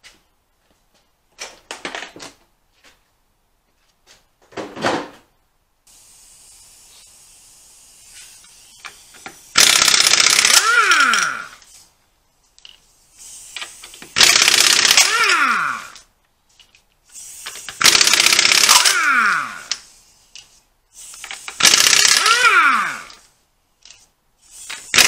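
Pneumatic impact wrench hammering lug nuts loose on a car's rear wheel: four bursts of rapid hammering, each about two seconds long and ending in a falling whine as the tool spins down, with a fifth starting at the end. A few light knocks come before the first burst.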